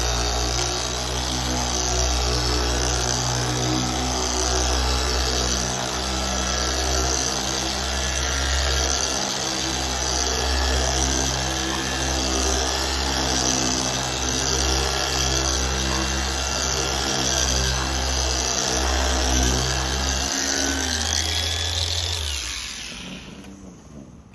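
Griot's Garage 3-inch random orbital polisher with an orange foam correcting pad running steadily at a slow speed, spreading compound over painted bodywork at the start of paint correction. Its hum slides down in pitch and stops near the end as the polisher is switched off.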